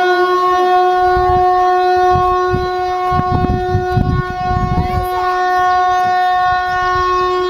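Civil-defence air raid siren sounding loudly, holding one steady pitch, with irregular low rumbling beneath it. It is the siren's routine weekly midday sounding.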